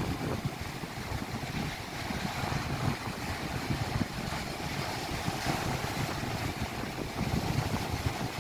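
Strong wind buffeting the microphone in uneven gusts, over the noise of rough lake waves.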